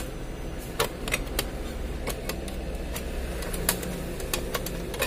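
Scattered light clicks and knocks of parts and covers being handled while a photocopier's fixing unit is opened, over a steady low hum.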